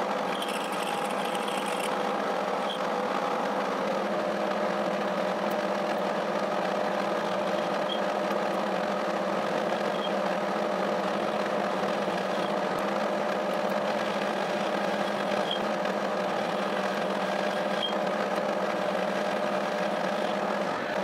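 A 1K62 metal lathe running steadily with a shaft spinning between centres, giving an even gearbox hum with a few faint ticks. It is rough-turning the shaft's weld-built-up bearing seats.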